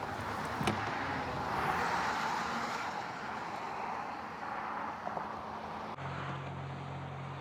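A flooded desert creek running fast: a steady rush of water. About six seconds in it cuts to a steady low hum, like the van's engine idling.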